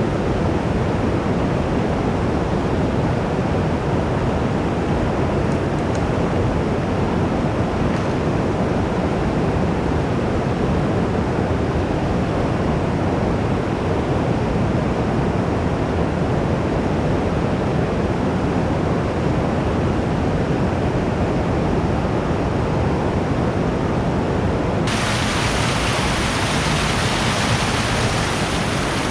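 Fast-flowing creek water rushing over rocks in a loud, steady roar, turning brighter and hissier near the end.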